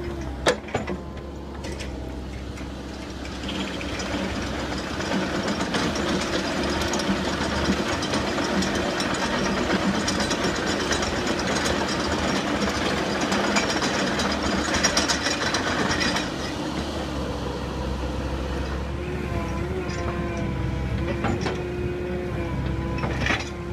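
Excavator diesel engine running steadily while its screening bucket works, with a dense rattling rush of soil and stones sifting through the bucket's steel grid from about three seconds in until about sixteen seconds in. A few sharp clinks of stone on steel near the start.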